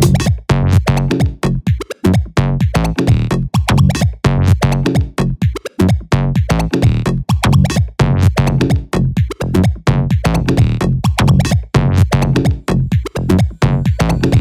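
Electronic techno-house club beat: a drum machine pattern with steady, evenly spaced hits over a heavy synth bass.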